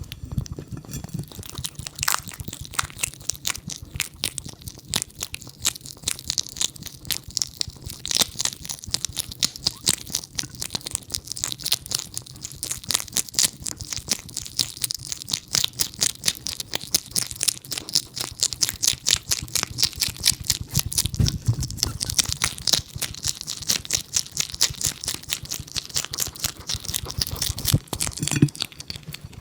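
European hedgehog chewing and chomping its food: a fast, continuous run of wet crunching clicks, several a second.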